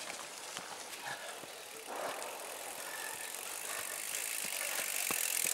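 Mountain bike rolling past close by on a muddy, leaf-covered trail: tyre noise through mud and leaves that grows louder as the bike nears, with a few sharp clicks.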